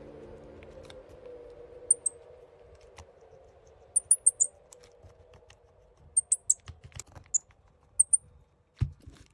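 Light, sharp clicks and taps in short quick clusters, like small plastic phone parts or a touchscreen being handled, with one dull low knock near the end.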